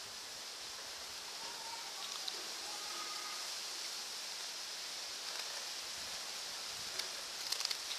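Steady high hiss, with a few sharp crunches near the end as a puppy bites into a square cracker held out to it.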